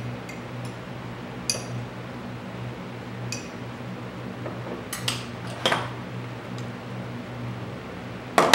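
Several light, briefly ringing clinks of a tool against a glass cup of heated soft-bait plastic, then a few heavier knocks on the table, the loudest near the end, over a steady low hum.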